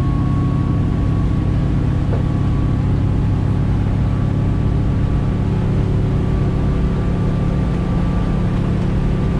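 Marex 310 motor boat under way, its Volvo Penta inboard diesel engine running steadily at just under 3,000 rpm cruising revs, heard from the helm as a constant drone.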